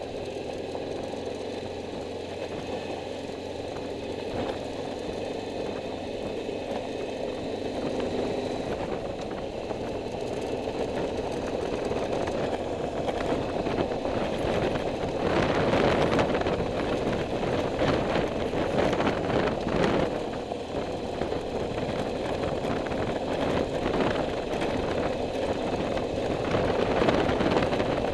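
Vehicle engine running steadily on a ride. The hum of the engine is plain at first, then louder road and wind rumble with uneven jolts builds up about halfway through.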